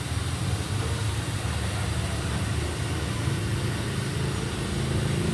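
A motor running steadily with a low hum, getting slightly louder near the end.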